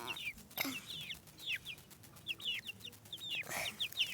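Domestic chicks peeping: a steady run of short, high, falling chirps, several a second. Two brief rustling bursts come about half a second in and again near the end.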